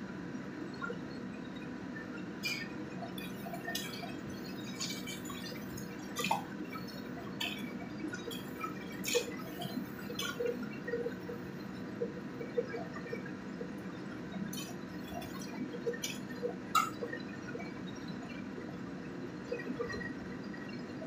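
Spicy snail sauce bubbling in a wok over a gas burner. From about two seconds in until about seventeen seconds, a metal ladle stirring the snails in their shells gives scattered clicks and clinks against the wok.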